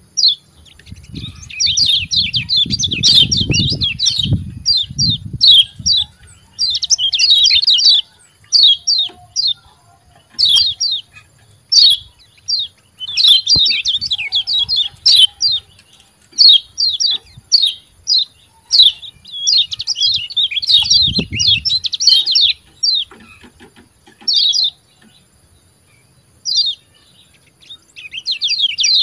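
Lemon-bellied white-eye (kecial kuning) giving its 'ciak ciak jos' call: bursts of rapid high chirps in short runs with brief pauses between. A low rumble sits under the chirps around three to four seconds in and again near twenty-one seconds, and a faint steady high whine runs under everything.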